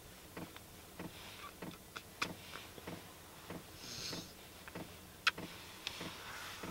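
Quiet rustling of blankets and bedding as a kitten is petted in bed, with faint, unevenly spaced ticks and clicks throughout and a brief soft hiss about four seconds in.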